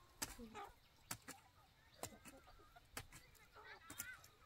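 Chickens clucking faintly, with sharp taps or knocks about once a second.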